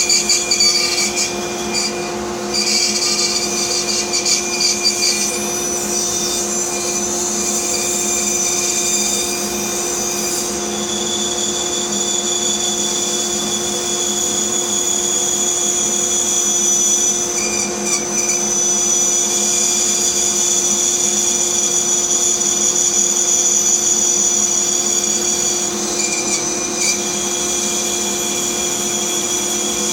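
A woodshop power tool running steadily, a constant motor hum with a high whine over it; its tone shifts briefly about two seconds in, near the middle and near the end.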